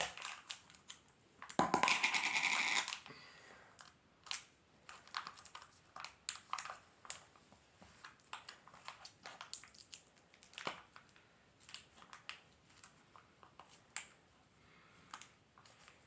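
Plastic packaging of a putty container being handled and pried at by hand, trying to open it. There is a loud crinkling rush about two seconds in, then a long run of scattered small clicks and crackles.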